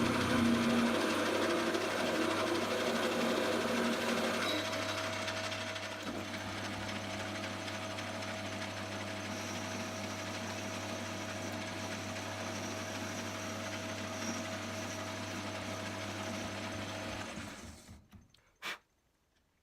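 Benchtop metalworking machine tool running, its motor giving a steady hum with a constant whine. It is busier and louder for the first few seconds, then runs evenly until it is switched off near the end and spins down, followed by a single click.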